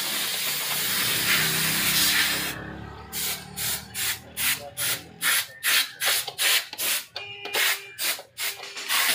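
A wrench being worked back and forth on the steering stem nut of a Honda motorcycle, tightening the rebuilt steering head, with a short rasping stroke about twice a second and a brief metallic clink about seven seconds in. Before the strokes start, a steady hiss cuts off about two and a half seconds in.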